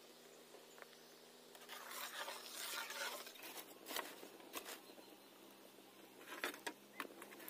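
Soapy water bubbling and fizzing in an iron kadhai over a wood fire, with a stretch of hissing about two seconds in and scattered sharp pops and crackles after that, over a faint steady hum.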